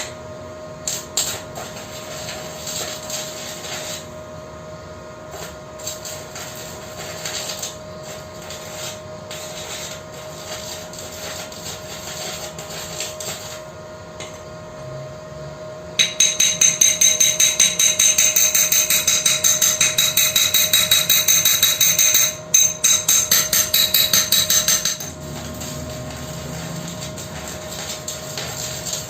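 Hammer striking the freshly welded steel auger of a meatball grinder. Scattered light knocks and scraping come first. About halfway through there is a run of loud, quick, evenly spaced metal blows, a few a second, that stops abruptly after several seconds. A faint steady whine runs underneath.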